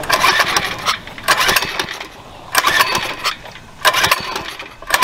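Baja 97cc mini bike engine being pull-started with the recoil cord, choke on: four hard pulls about one every 1.3 seconds, the engine cranking over without catching. The owner traces the failure to start to a corroded fuel line.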